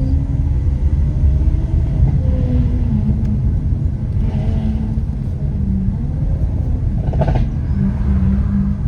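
Lamborghini Aventador SV's 6.5-litre V12 running at steady cruising speed under a heavy low rumble, its engine note drifting gently up and down. A short crackling burst comes about seven seconds in.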